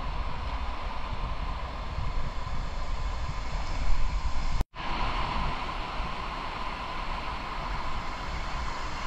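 Steady rush of a shallow river and its small cascades, overlaid by wind rumbling on the microphone. It drops out for an instant about halfway through, then carries on.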